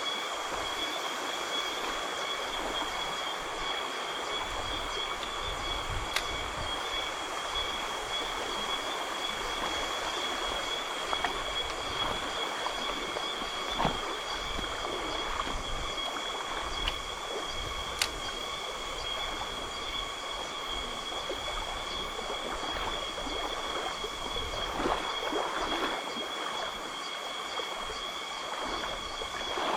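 Steady insect chorus holding several unwavering high pitches over the even rush of a forest stream, with a few faint sharp clicks.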